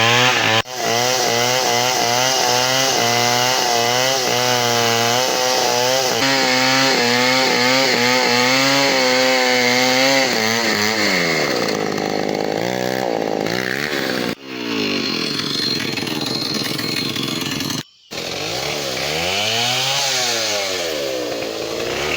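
Two-stroke chainsaw running hard while cutting through wood, its engine pitch wavering under the load, then swelling up and down in long slow sweeps. The sound drops out briefly three times.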